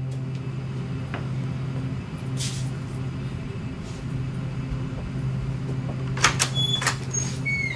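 Steady low hum over a background noise, with a few sharp clicks near the end and a couple of brief high chirps just before the end.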